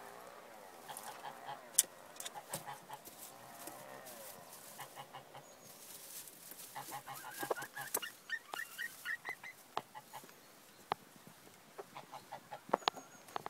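Dutch bantam chickens calling: long wavering calls in the first few seconds, then a quick run of short clucks around the middle. Sharp clicks and knocks come through throughout, loudest near the end.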